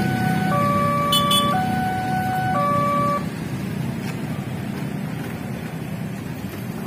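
Railway level-crossing warning alarm sounding a two-tone pattern that switches pitch about once a second, then stopping about three seconds in as the barrier lifts. Motorbike and traffic engine rumble runs underneath.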